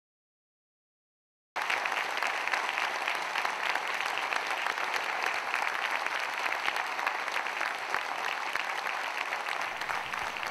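Complete silence for about a second and a half, then a large audience applauding steadily, a dense patter of many hands clapping.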